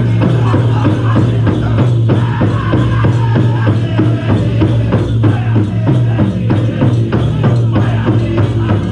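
Powwow drum group performing a chicken dance song: a large powwow drum struck in a steady, even beat under group singing.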